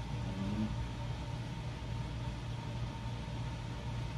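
Room air-conditioning unit running: a steady low hum with a faint, even whine above it.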